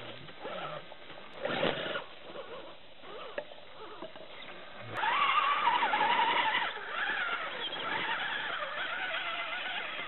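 Electric motor and gear train of an RC scale crawler whining as it climbs over rock, the pitch rising and falling with the throttle. The first half is quieter, with a few short scrapes and knocks; the whine sets in loudly about halfway through, after a sharp click.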